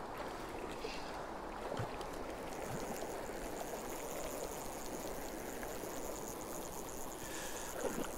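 Stream water flowing steadily, an even rush of moving water.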